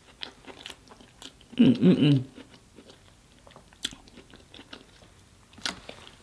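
Close-miked eating sounds: soft chewing and wet lip smacks. A short, loud wordless vocal sound comes about one and a half seconds in.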